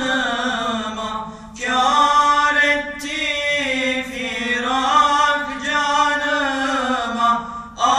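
Two male voices singing a Turkish ilahi (Islamic hymn) unaccompanied, in long, wavering held lines, with brief breaths about a second and a half in and near the end.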